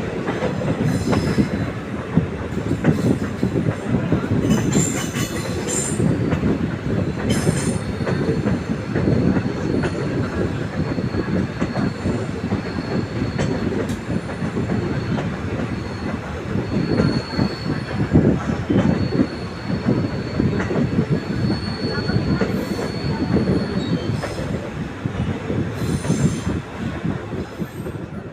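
Train running on the rails: a steady rumble and clatter of the wheels, with a thin high wheel squeal that sets in about a quarter of the way through and dies away near the end.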